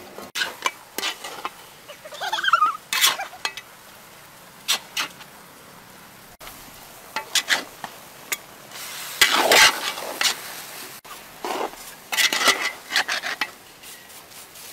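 Metal spatula scraping and clattering against a large wok as noodles, bean sprouts and chives are stir-fried, in irregular strokes over a light sizzle.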